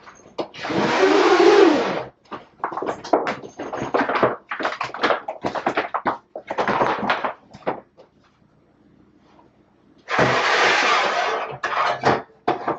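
Handling noise as a plastic tray is pulled from a drying rack. There are two long scraping slides, one about half a second in and one about ten seconds in, with a string of short knocks and rustles between them.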